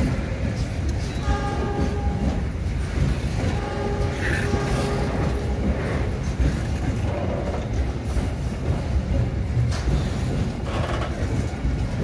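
Container freight train's loaded flat wagons rolling past close by on a sharp curve: a steady heavy rumble with wheel clatter. Brief pitched tones come and go a few times over it.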